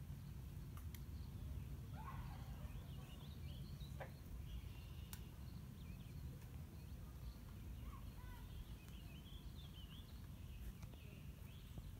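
Faint outdoor ambience: a steady low rumble with scattered faint bird chirps and twitters, busiest about two seconds in and again around eight to ten seconds.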